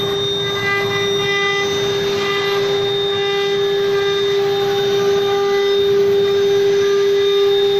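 CNC router running: a steady high-pitched whine with a hiss of machine noise beneath.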